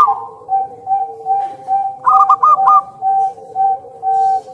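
Zebra dove (perkutut) cooing: a steady string of short, even coo notes, broken about two seconds in by a quick run of four higher notes.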